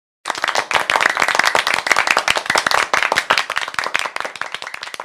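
Audience applauding, a dense clatter of many hands clapping. It starts suddenly just after the beginning and eases slightly toward the end.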